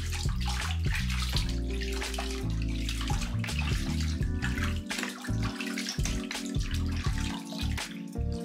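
Bath water splashing and sloshing in a plastic tub as a hand scoops it over a small wet puppy, over background music with held bass notes.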